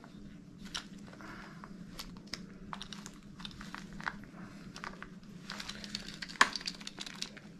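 Handling noise from an Olympus TriPort single-incision laparoscopic port: irregular crinkling and small plastic clicks as its ring and silicone membrane are worked onto the plastic introducer, with one sharper click about six and a half seconds in. The used port is a bit rigid.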